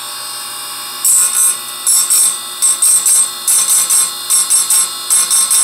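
Electric chainsaw-chain sharpener's grinding wheel spinning with a steady hum. From about a second in, it is dipped against a chain's cutter tooth in many short grinding strokes, about two or three a second, sharpening the tooth.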